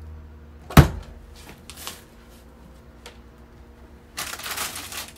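A single sharp knock about a second in, then a few faint clicks and rustles. Near the end comes about a second of plastic food-pouch packaging crinkling as it is handled.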